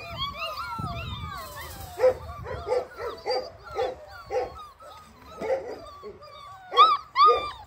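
Month-old Dalmatian puppies whining and yelping: several overlapping high, arching whines at first, then short yelps about twice a second from about two seconds in, with the two loudest near the end. These are hungry puppies clamouring to nurse from their mother.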